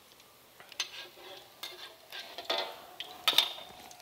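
A metal utensil clanking and scraping against a wok of frying crab omelet, a string of sharp metallic knocks with brief ringing, the loudest about three seconds in.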